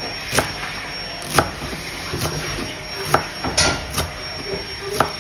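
Knife chopping fresh green coriander on a cutting board: sharp strikes roughly once a second, about six in all.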